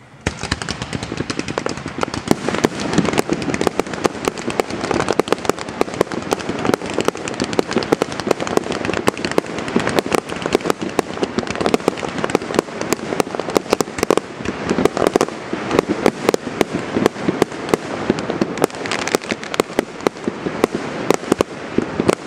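Fireworks going off in a rapid, continuous barrage: dense overlapping bangs and crackling that start suddenly just after the beginning and keep on without a break.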